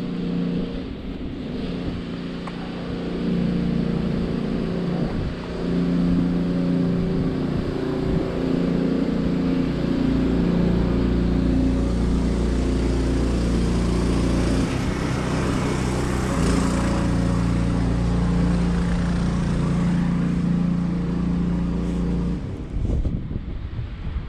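Wind rumbling on the microphone, heaviest through the middle of the stretch, over a steady hum that steps up and down in pitch.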